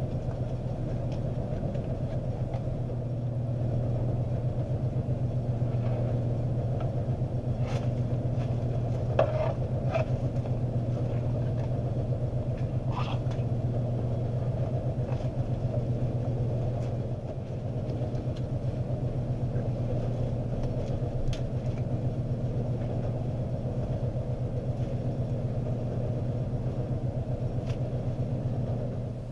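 Electric power sander running steadily on hardened bondo, with a few brief scrapes against the surface, switched off abruptly at the end.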